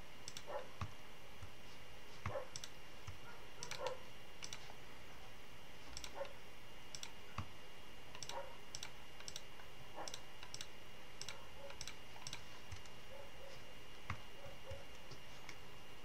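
Scattered clicks of a computer mouse and keyboard, many in quick pairs, over a faint steady high-pitched whine.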